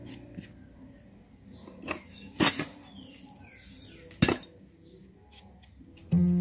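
About four short, sharp knocks and clicks from handling a coconut-shell pot in a plastic basin while potting substrate is pushed into it by hand.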